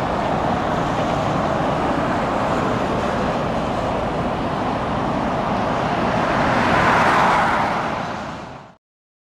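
Jet airliner engine noise, steady and swelling a little about seven seconds in, then fading out quickly to silence just before the end.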